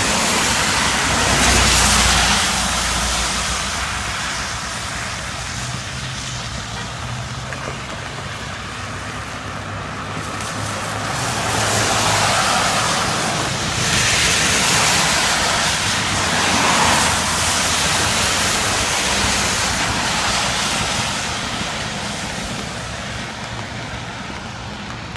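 Cars passing on a wet road, their tyres hissing on the wet surface. The sound swells and fades once about two seconds in, then again through several passes in the middle, under steady rain.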